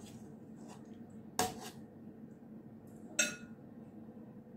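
Metal spoon clinking against a metal cooking pot of stew twice, about two seconds apart, the second clink ringing briefly, over a faint steady hum.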